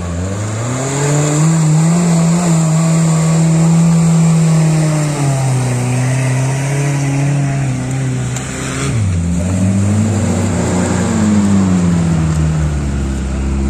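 Small Suzuki off-road 4x4s (Samurai and Vitara) driving through mud close by, engines revving under load. The engine note climbs in the first second or two, drops about five seconds in, then rises and falls again around ten seconds in.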